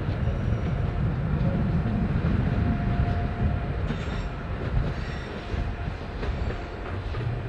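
A train moving on the tracks: a steady low rumble, with a few sharp clicks of the wheels over rail joints in the second half.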